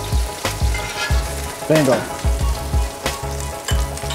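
Butter, garlic and thyme sizzling in a hot cast iron skillet around a strip steak, with repeated knocks as a metal spoon dips into the pan to baste it.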